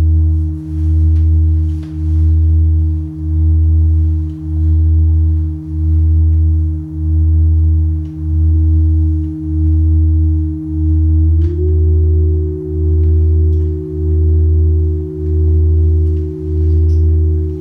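Drone of layered sine wave oscillator tones: a loud low tone throbbing slowly and evenly, about once every second and a quarter, under steadier higher tones. A little past halfway one of the upper tones slides up slightly in pitch and holds there.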